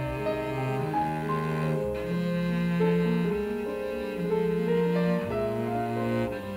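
Cello bowed in a slow, sustained melody, with vibrato on the held notes, over piano accompaniment.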